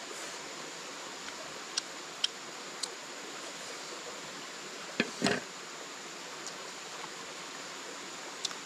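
Steady forest background: an even hiss with a faint, thin, high steady tone, broken by a few light clicks and one short louder sound about five seconds in.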